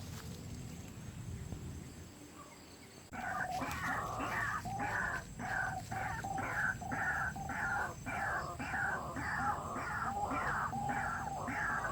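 White-breasted waterhen's harsh, repeated 'kruak' call, about two calls a second, starting abruptly about three seconds in after a quiet stretch.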